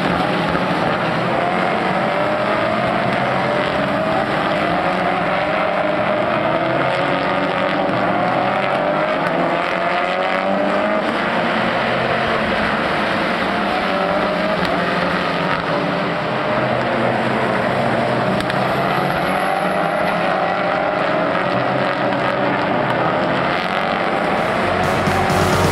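Peugeot 308 Racing Cup touring cars' turbocharged four-cylinder engines accelerating past. Their pitch rises again and again as they shift up through the gears. Music comes in near the end.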